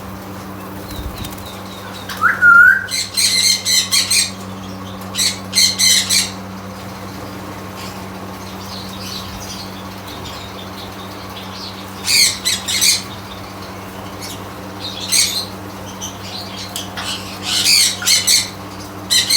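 Pet parrots squawking in harsh bursts, spread through the clip in several clusters, with a short rising whistle about two seconds in. A steady low hum runs underneath.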